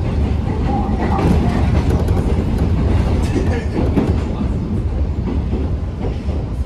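Seoul subway Line 1 electric train running along the track: a steady low rumble with occasional clicks and knocks from the wheels and car.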